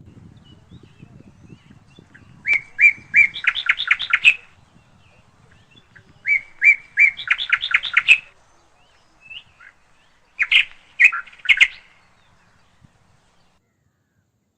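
A bird chirping in three short phrases, each made of a few spaced notes that run into a quick string of chirps. Near the start a faint low rumble comes before the first phrase.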